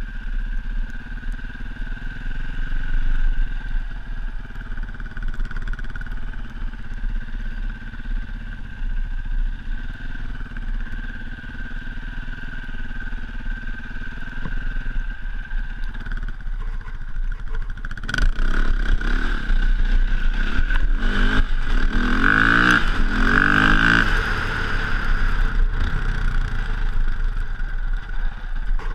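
KTM dirt bike engine running under way through sand, heard from the rider's position. It holds a steady drone at first, then about two-thirds in the rider opens the throttle repeatedly and the pitch rises and falls, loudest near the three-quarter mark, before it eases back.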